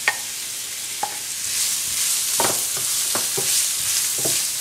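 Chopped red onions sizzling in hot oil in a stainless steel pan while a wooden spatula stirs them, scraping and knocking against the pan. Two sharp taps come near the start, and the sizzle swells about a second and a half in as the onions begin to sauté.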